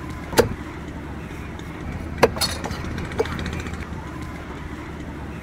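Knife chopping fish on a cutting block: four sharp chops, two of them close together, over a steady low background hum.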